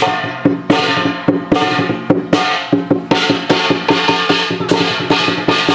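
Dragon-dance percussion: a drum with a gong and clashing cymbals struck in a steady rhythm, about two to three strikes a second, the metal ringing on between the beats.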